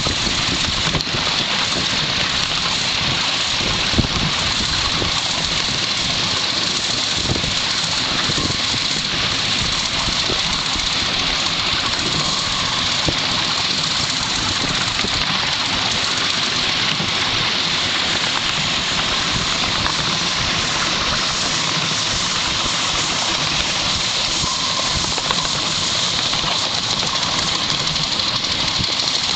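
Miniature railway locomotive hauling a ride-on train along the track, a steady running noise with no break.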